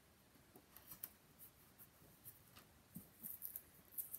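Faint, scattered crackles and rustles of a strip of double-sided tape and its paper backing being handled and pressed onto cardstock, busier near the end.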